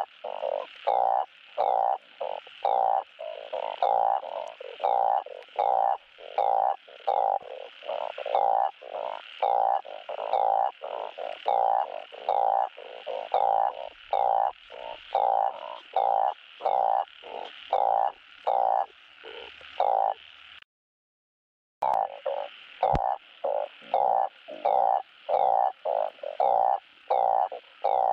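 Male balloon frog (Glyphoglossus molossus) giving its advertisement call to attract mates: short croaks repeated about twice a second. The calls break off for about a second roughly two-thirds of the way through, then resume.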